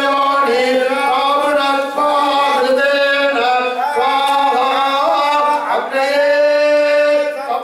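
Male voices chanting mantras in a held, sung tone, with drawn-out notes that slide between pitches over a steady low note.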